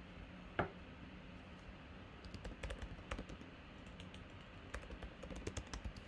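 Typing on a computer keyboard: two quick runs of key clicks, with one single louder click a little over half a second in.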